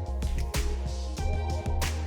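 Background music: an electronic track with a heavy, steady bass line and a regular beat.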